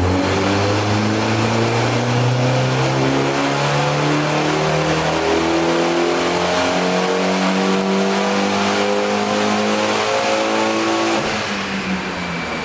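Turbocharged Hyundai Genesis Coupe engine making a wide-open-throttle dyno pull. The revs climb steadily for about ten seconds, then the throttle lifts and the revs fall near the end.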